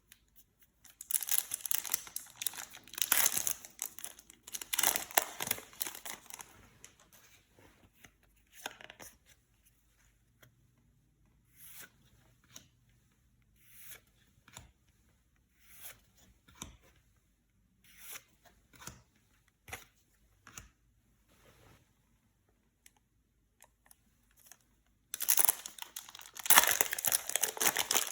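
Yu-Gi-Oh booster pack foil wrappers being torn open and crinkled, in two dense spells near the start and near the end. In between come lighter, scattered short crackles and taps of the wrappers and cards being handled.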